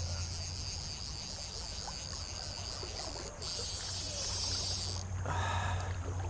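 Crickets chirring steadily in a high, continuous buzz over a low rush of moving water.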